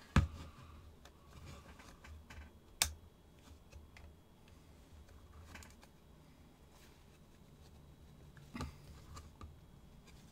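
Small sharp taps and clicks as a pin is tapped into the spring mechanism of an antique powder flask: a loud tap just after the start, another about three seconds in, faint clicks between and a softer one near the end.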